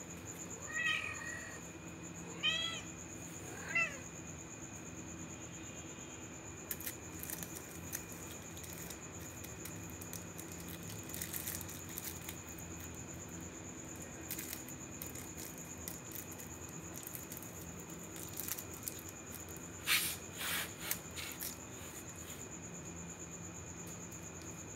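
Ginger kittens meowing, three short calls in the first four seconds, then scratching and scuffling as they play and paw at a metal box and pipe, with a cluster of scuffs near the end. A steady high cricket chirr runs underneath.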